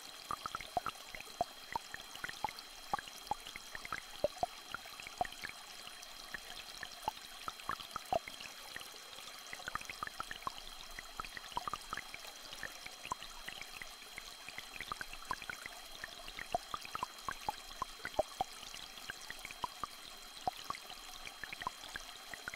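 Small stream trickling, with many scattered drops plinking at irregular moments, under two steady high-pitched tones.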